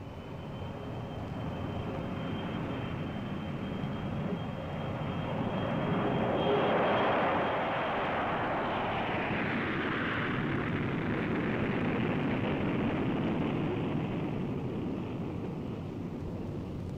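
B-52 bomber's eight turbojet engines at takeoff power as the jet lifts off and climbs past. The noise builds to a peak about six to seven seconds in, then holds, with a thin high whine over it in the first half.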